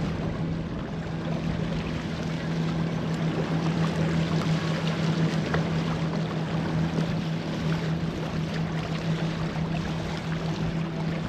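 Water splashing and sloshing beside a kayak as several white perch hooked on one multi-hook rig thrash at the surface, over wind and water noise and a steady low hum.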